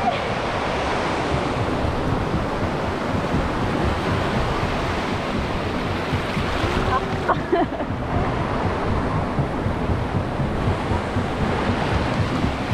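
Small waves washing up the wet sand and swirling back at the waterline, with wind buffeting the microphone.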